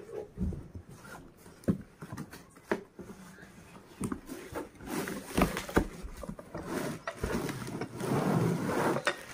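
Cardboard juicer box being handled and opened: scattered knocks and scrapes of the cardboard, then a longer rustle of plastic wrapping near the end as the bagged juicer is pulled out.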